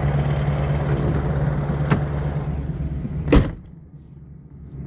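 Steady low drone of a car running, heard from inside the cabin. A short click about two seconds in, then a sharp knock about three and a half seconds in, after which the sound drops and turns muffled.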